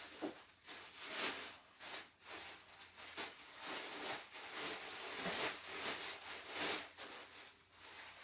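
Plastic packaging bag crinkling and rustling in irregular surges as a cordless drill is pulled out of it and unwrapped.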